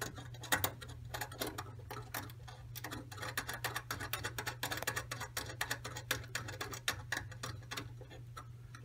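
Fingers fitting a small metal mounting bracket for a tabletop connectivity unit to the underside of a table, making many small, irregular metal clicks and ticks. A steady low hum runs underneath.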